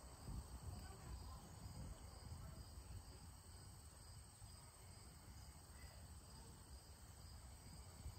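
Near silence outdoors: faint insects chirping in an even, repeating high-pitched pulse over a low rumble.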